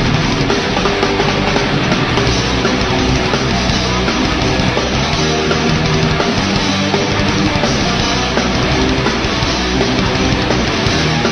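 Loud live heavy metal: distorted electric guitars over a drum kit, playing without a break.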